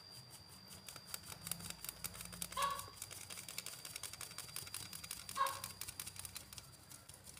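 Light, quick taps of a palm against the rim of a stainless-steel mesh sieve, sifting black glutinous rice flour. Twice, about three seconds apart, a brief animal call cuts in.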